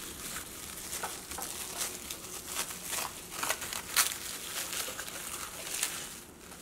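Plastic cling film crinkling and crackling as it is peeled off cut cucumber halves, in irregular crackles with the sharpest about four seconds in.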